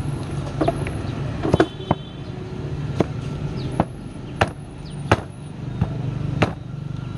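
Heavy meat cleaver chopping through roast pork ribs on a round chopping block: about nine sharp, irregularly spaced chops.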